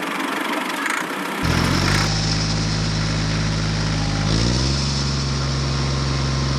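A rushing noise for about a second and a half, then an engine running steadily, its pitch stepping up a little about four and a half seconds in and holding there.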